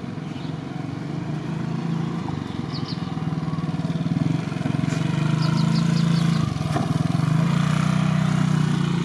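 Diesel locomotive engine running with a steady low throb during coupling, growing louder about halfway through. There is a single sharp knock near the end of that rise.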